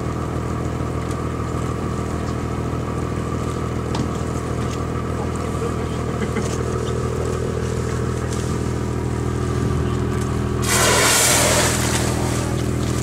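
Steady hum of the whale-watching boat's idling engine. Near the end, a humpback whale surfacing beside the boat blows once: a loud rushing exhale about a second long.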